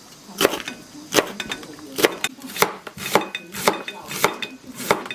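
Knife striking a cutting board in a steady rhythm of about two cuts a second, some strokes with a short metallic ring.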